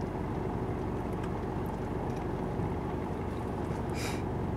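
Four-wheel-drive engine running steadily at low revs while crawling down a steep creek bank. A brief hiss about four seconds in.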